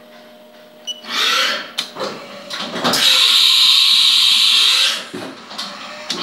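Haas Minimill's umbrella tool changer swapping tools. A short hiss comes about a second in, then a few sharp clunks, then a longer loud hiss with motor whine rising and falling in pitch underneath, which stops about five seconds in.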